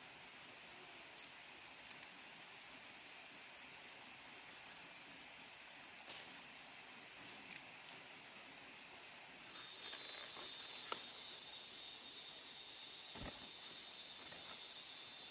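Insects chirring steadily in high, continuous tones. About two-thirds of the way through, one of the tones stops and a slightly lower one takes over. A few faint knocks come through.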